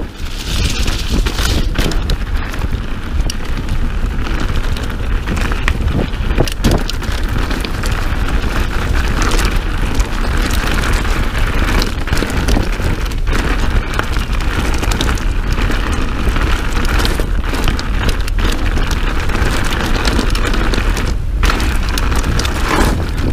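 Mountain bike ridden down a dirt trail, with a steady rush of wind on the microphone, the tyres crunching over the ground, and frequent clicks and rattles from the bike over bumps.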